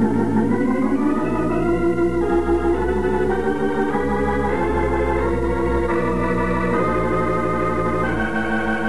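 Organ music bridge between radio-drama scenes: held chords that shift every second or two, moving to a new chord near the end.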